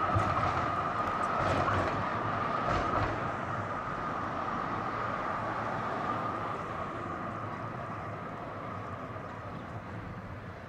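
A tram running along the rails with a steady high whine and a few low clunks in the first three seconds, slowly fading as it moves away.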